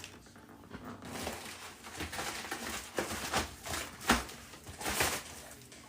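Rustling and light clicks of trading cards and card packaging being handled and put away, with a sharper knock about four seconds in.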